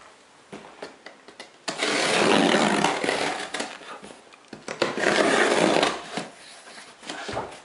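Hands rubbing and sliding over a cardboard shipping box: two scraping stretches of about a second and a half each, around two and five seconds in, after a few light knocks.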